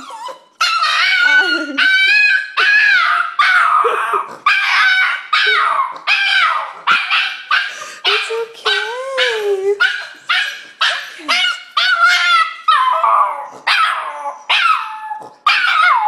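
Cairn terrier howling, whining and yipping in excited greeting: an unbroken run of pitched yowls, one or two a second, many sliding down in pitch and one wavering up and down near the middle.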